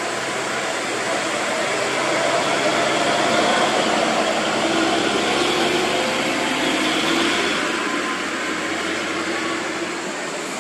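Hino truck hauling an LNG tank container passing close by: engine and tyre noise swelling to a peak a few seconds in, then easing as smaller vehicles follow.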